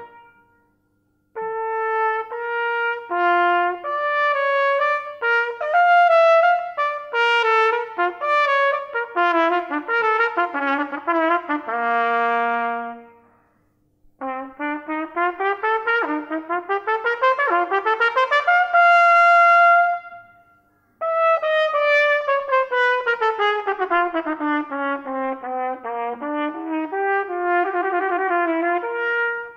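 Trumpet playing unaccompanied in quick, separated notes. The phrases break off about a second in, near the middle and about two-thirds through, with fast rising runs and later a long falling run.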